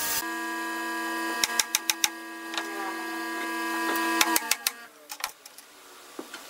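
A steady machine hum made of several fixed pitches runs and then cuts out about four and a half seconds in. Sharp clicks and taps of tools on wood and metal come in small clusters, around one and a half seconds in and again near the cut-out.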